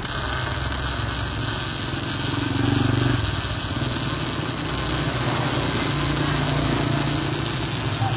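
MIG welding arc crackling and sizzling steadily from a MIG-250 welder, over a low electrical hum; the arc strikes suddenly at the start.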